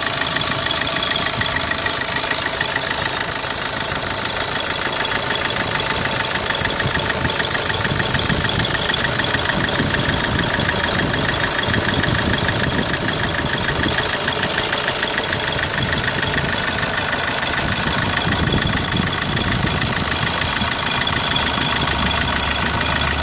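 Opel Corsa D 1.3 CDTI four-cylinder turbodiesel idling steadily with a fast, even ticking running through it, the engine noise shown as a fault.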